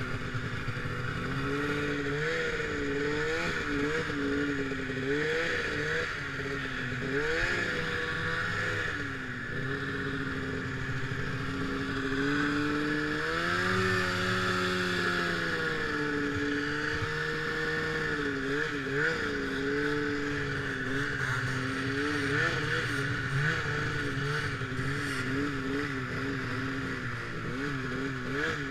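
Snowmobile engine running under the rider, its pitch rising and falling again and again as the throttle is worked, with one long climb and drop about halfway through, over a steady hiss.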